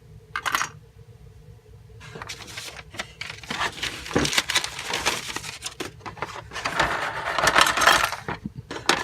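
Loose plastic model-kit parts and sprues being handled: a short clatter near the start, then from about two seconds in a dense run of clicks and rattling, loudest in the second half.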